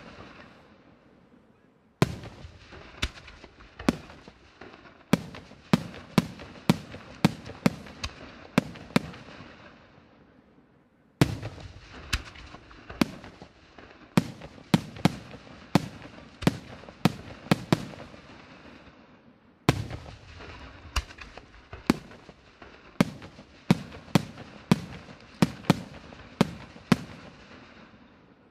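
Aerial fireworks bursting in quick succession, about one to two sharp bangs a second. The bangs come in three runs, each starting with a loud bang after a short lull.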